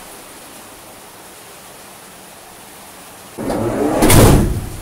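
Heavy rain on the van's bare metal body, a steady hiss. About three and a half seconds in, a much louder rushing noise swells, peaks, and falls away within about a second.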